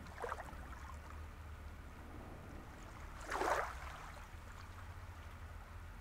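Small waves lapping at the shoreline, with two brief splashes: a small one about a third of a second in and a louder one at about three and a half seconds. A steady low rumble runs underneath.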